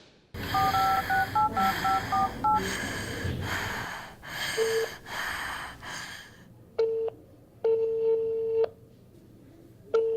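Phone keypad tones: about ten quick dual-tone beeps as a number is dialled, over a loud pulsing hiss. From about seven seconds a single tone sounds in on-off bursts, like a phone's ringing tone as the call goes out.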